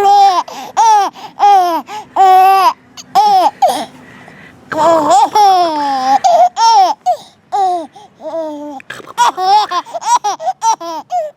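Baby laughing in a run of high-pitched bursts, pausing briefly about four seconds in, then laughing again.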